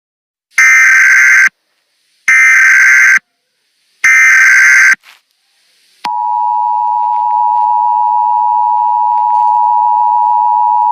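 Emergency Alert System tones: three loud, screeching bursts of SAME header data about a second each, then about six seconds in the steady two-tone EAS attention signal begins and holds.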